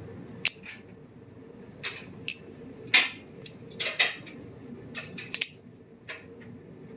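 Butterfly knife (balisong) being flipped open and closed in the hand: about ten sharp metallic clicks and clacks at an irregular pace as the handles and blade swing round and knock together.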